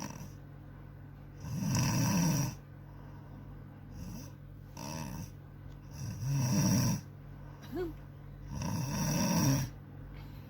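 A sleeping woman snoring loudly, three long snores a few seconds apart, with softer breaths between them.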